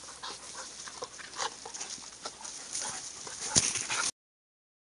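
Dogs moving about in the brush by a spring: irregular rustling and scuffing that cuts off suddenly about four seconds in.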